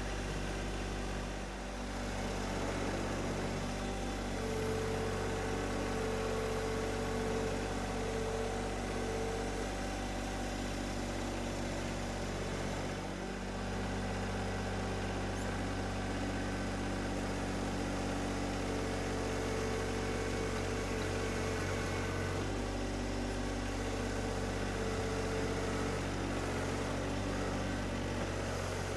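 John Deere 1025R compact tractor's three-cylinder diesel engine running steadily while the loader works dirt. A higher steady tone joins in over the engine for several seconds, twice.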